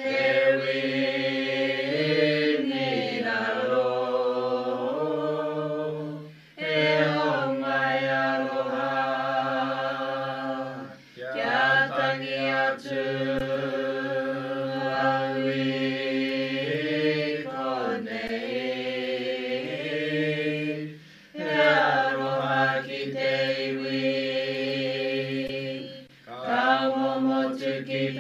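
Mōteatea, a traditional Māori chant, sung on long held notes with slight rises and falls in pitch, breaking off briefly for breath every few seconds.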